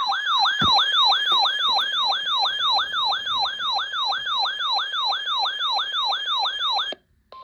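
Electronic emergency alert siren: a rapid rising-and-falling yelp, about three sweeps a second, that cuts off suddenly near the end, followed by a brief steady beep. It sounds as the attention signal of a weather warning broadcast.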